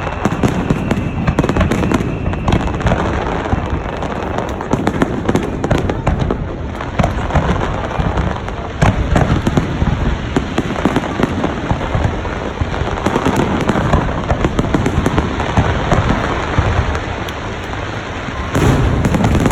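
Fireworks display: a dense, unbroken run of shell bursts, booms and crackling, with a louder cluster of bursts near the end.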